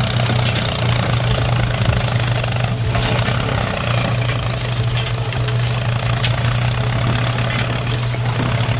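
A heavy engine running steadily with a strong low hum, typical of construction machinery at work.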